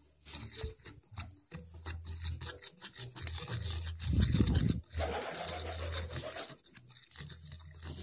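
Metal spoon stirring a thick mixture of sweetened condensed milk and egg in a plastic bowl: light taps and scrapes, with a louder rubbing noise about four seconds in.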